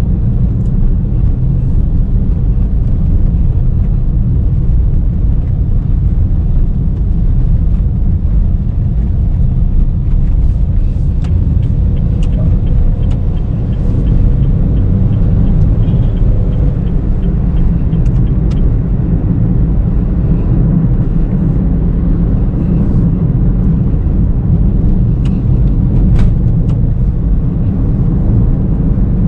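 Steady low rumble of a 2019 Honda Brio V CVT being driven: road and engine noise. About twelve seconds in, a run of light, evenly spaced ticks lasts several seconds.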